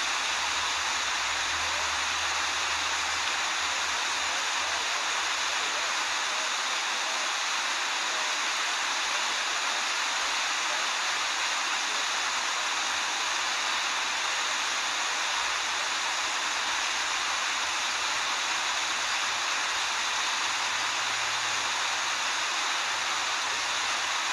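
Rushing water pouring over a waterfall, a steady, even rush that does not change.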